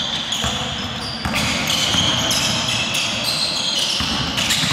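Basketball being dribbled on a hardwood court floor, a few sharp bounces, with high-pitched sneaker squeaks.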